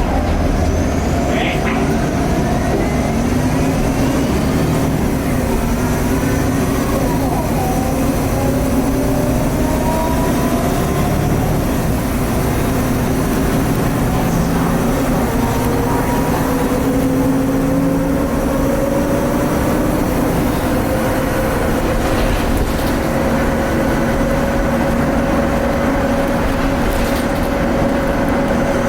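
Cummins ISL diesel engine and turbocharger of a 2010 Nova Bus LFS articulated city bus, heard on board while the bus is under way. The engine pitch climbs slowly twice as the bus gathers speed, over a steady high turbo whine.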